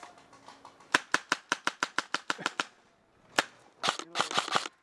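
Airsoft rifle firing a quick string of about ten sharp shots, about six a second, then a single shot and a final flurry of shots near the end.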